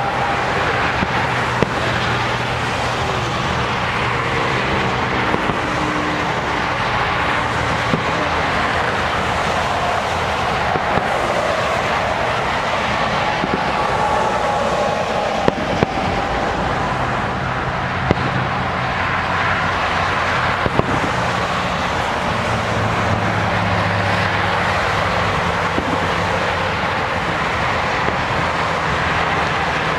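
Aerial fireworks bursting at a distance: a handful of sharp pops scattered through, over a steady background noise with a low hum.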